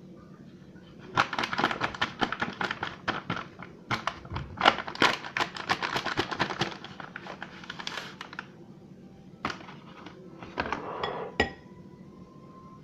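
A spoon clattering and knocking against a bowl as flour dough is stirred: a rapid run of clicks for about seven seconds, then a few more knocks near the end.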